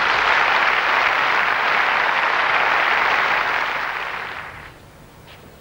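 Stadium crowd applauding after a point, steady at first, then fading out about four and a half seconds in.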